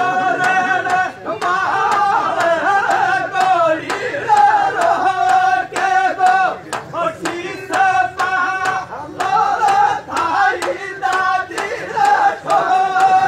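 Group of men singing a Rajasthani dhamal folk song in a loud chanting style, with a chang (large frame drum) beaten at a steady beat.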